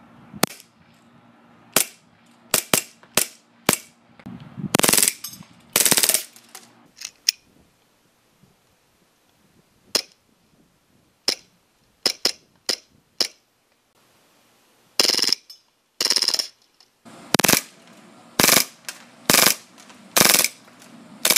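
KWA/KSC Glock 26C gas blowback airsoft pistol firing. Single shots come through the first few seconds, then two short full-auto bursts about five and six seconds in. Scattered single shots follow, then a string of short full-auto bursts in the last six seconds.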